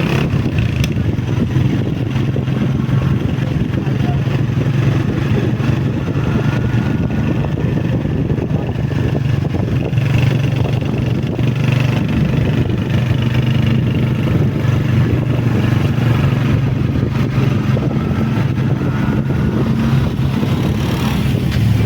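Honda CG125's single-cylinder four-stroke engine running steadily while riding.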